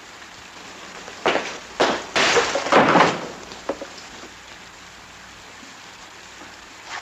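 A soldier in field gear jumping up and down: a few thudding landings with equipment clattering and rattling, the last and longest rattle lasting most of a second, over a steady hiss of rain. It is a check that nothing in his kit rattles.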